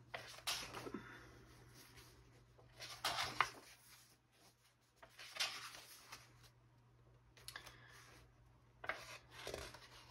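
Glossy pages of a large paperback catalog being turned by hand: soft papery swishes and rustles, several times with quiet gaps between.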